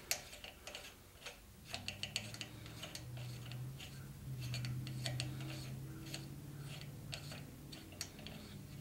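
Nut being spun by hand along the threaded bolt of a harmonic balancer installer tool on a small-block Chevy 350's crankshaft, giving a run of small, irregular metallic ticks and clicks. A low steady hum comes in about two seconds in.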